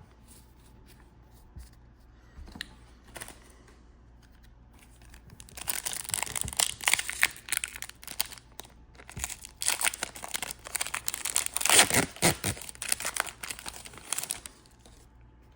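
Foil booster pack wrapper being torn open and crinkled by hand: a few faint clicks, then from about five and a half seconds in, several seconds of loud crackling and tearing.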